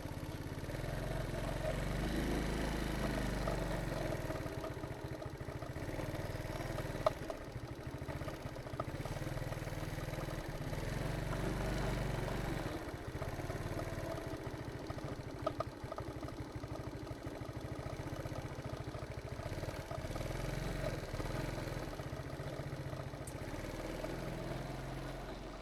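A motorbike engine running steadily, its low rumble swelling and easing several times.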